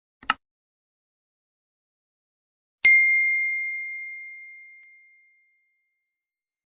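A brief soft click, then a single bell-like ding about three seconds in: one clear ringing tone with a few higher overtones, struck once and fading out over about two and a half seconds.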